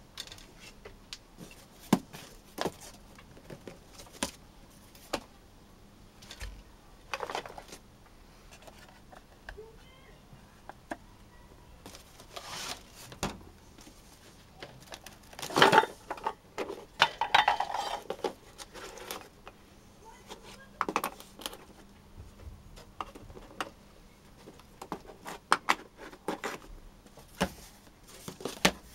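A cardboard box being opened and unpacked by hand: flaps and packing rustling, with scattered knocks and clinks as hard cast-resin orgonite pieces are lifted out and set down on wooden decking. The loudest rustling comes about halfway through.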